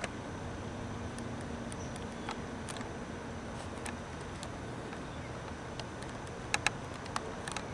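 Steady background hiss with scattered light clicks, and two sharper clicks in quick succession about six and a half seconds in.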